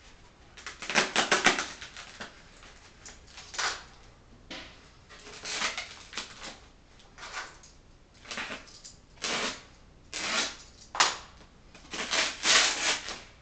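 Styrofoam packing insert being handled and picked at by hand, with a dozen or so short scratchy rubbing bursts, the loudest about a second in and near the end.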